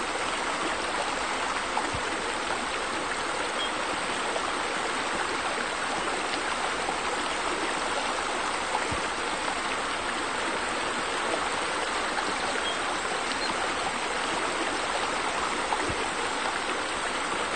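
Steady running water, like a stream or water feature, with a few faint clicks in it.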